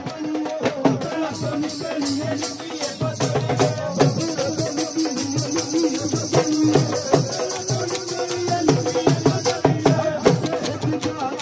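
Punjabi folk music: a steady drum beat with hand clapping and a jingling rattle under a sung melody.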